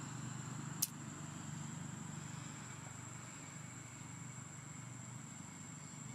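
Steady low background rumble with a thin, steady high-pitched whine above it, and a single sharp click a little under a second in.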